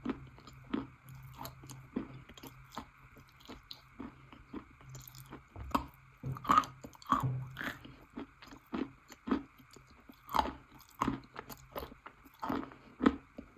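Close-miked biting and chewing of a chunk of wet chalk: irregular crisp crunches and crumbling, with a few louder bites.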